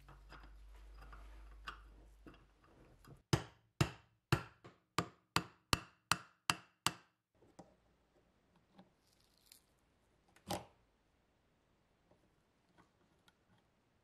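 A run of about ten sharp metallic taps, roughly three a second, then a single louder tap a few seconds later, from work on a rusted Zippo lighter held in a bench vise.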